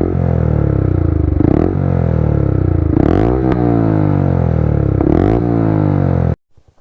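Yamaha R15 V3's single-cylinder engine through an aftermarket exhaust, revved in sharp blips about every second and a half with the revs falling away between them. The sound cuts off abruptly near the end.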